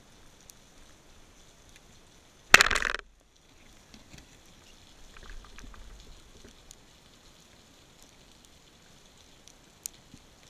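A band-powered speargun firing underwater: one sudden, loud crack with a brief rattle of the shaft and line, under half a second long, about two and a half seconds in. A faint low rumble follows a few seconds later against a background of small clicks.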